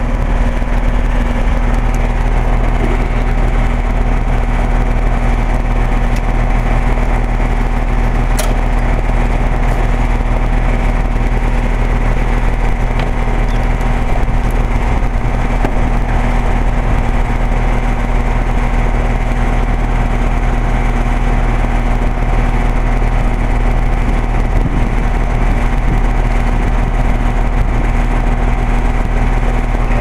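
2007 Carrier central air-conditioner condensing unit running: a steady hum from its Copeland scroll compressor, over the rush of the condenser fan, with one brief click about eight seconds in.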